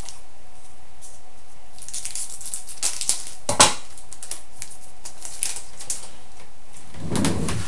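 A foil trading-card pack being torn open and its wrapper crinkled, with scattered crackles and a sharp snap about three and a half seconds in, over a steady hiss.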